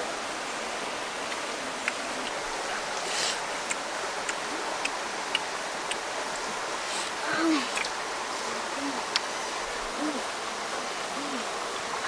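Shallow forest stream flowing steadily over rocks. In the second half a few short, low calls from an animal come about once every second or so, and small sharp clicks are scattered through.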